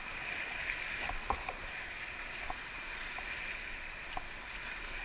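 Whitewater rapid rushing steadily around an inflatable raft, with a handful of short knocks scattered through it.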